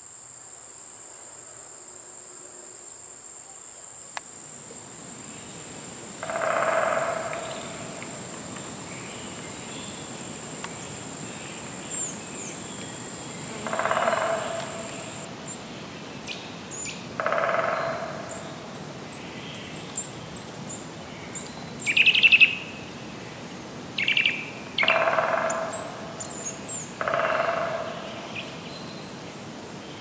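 A steady, high-pitched insect drone that stops about halfway through, with a bird calling over it: about six calls of roughly a second each, spread out, and a few shorter, higher chirps.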